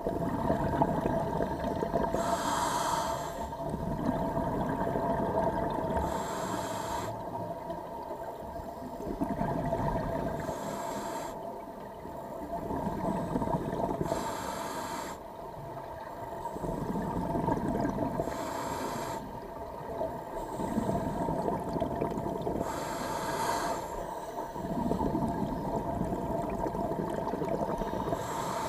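Scuba diver breathing underwater through a regulator: a short hissing inhale about every four seconds, seven in all, each followed by a low bubbling rumble as the exhaled air escapes.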